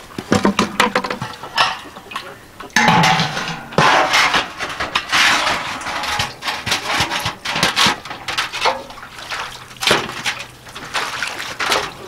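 Galvanized steel chicken waterer being handled and fitted together after filling: repeated metal clanks and scrapes, with some water splashing.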